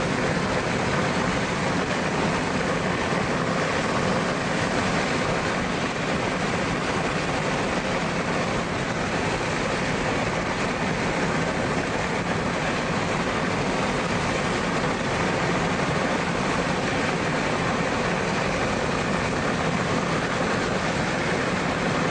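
Steady rushing noise of wind and rain around a vehicle, with its engine running underneath, level throughout.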